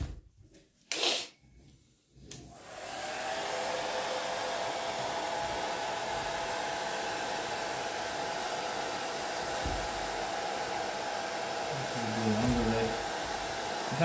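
Hand-held hair dryer switched on about two seconds in after a couple of brief knocks, then blowing steadily with a faint steady whine. It is heating the cosmoline-soaked wrapping so it softens and comes off.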